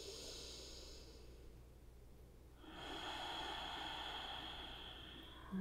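A woman's slow, audible breathing while held in a forward fold: one breath fading out in the first second, then after a short pause a longer breath of about three seconds. A brief low sound right at the end.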